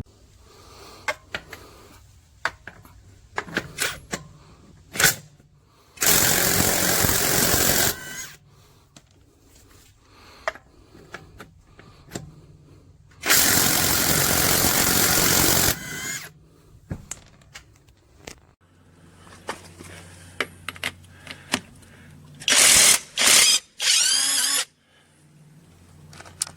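Cordless 1/2-inch impact wrench run in bursts: two of about two seconds each, then three shorter ones near the end, with clicks and handling knocks in between.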